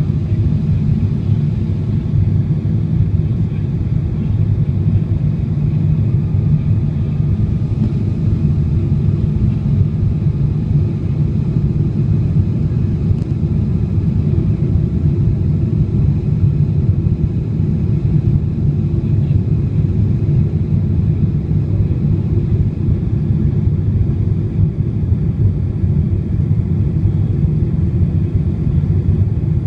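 Steady low rumble of a Boeing 777-300ER's GE90 engines and airflow on approach, heard from inside the passenger cabin.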